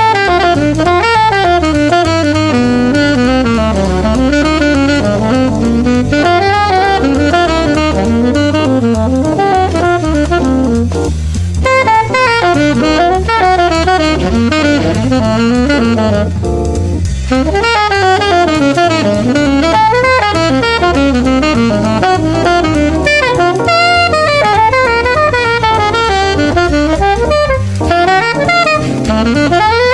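Jazz saxophone improvising fast, winding lines over a play-along backing track with bass and drums, with short breaks between phrases about a third and halfway through.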